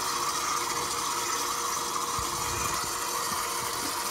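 KitchenAid Commercial stand mixer running steadily at low speed, its dough hook turning through flour and liquid as a bread dough begins to come together. The motor gives an even, unbroken whine.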